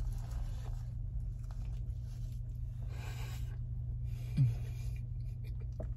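A person chewing a mouthful of burger, with soft rustling of the foil sandwich wrapper, over a steady low hum. A short hummed 'mm' comes about four seconds in.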